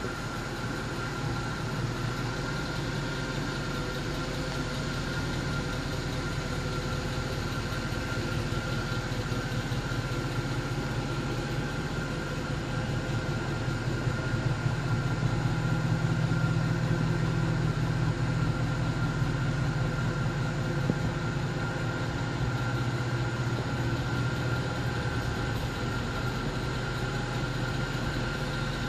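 Mercedes C63 AMG's 6.2-litre V8 idling steadily, a low hum that grows louder for several seconds about halfway through, as the rear of the car with its exhausts comes close. A steady thin high whine sits over it.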